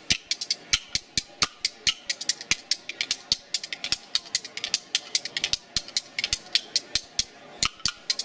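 Background music made of quick, dry percussion hits, several a second, over a faint sustained backing.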